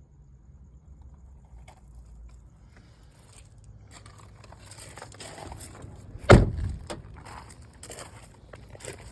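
Rustling, crinkling and scraping of interior parts being handled inside a stripped-out vehicle, starting about four seconds in, with one loud sharp thump about six seconds in.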